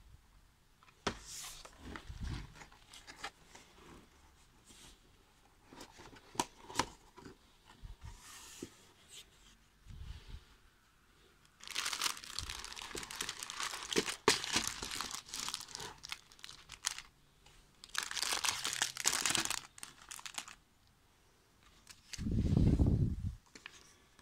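Plastic bags of LEGO Technic parts crinkling and rustling as they are handled in their cardboard box, with scattered light clicks, and two longer stretches of loud crinkling past the middle. A brief low rumble near the end is the loudest sound.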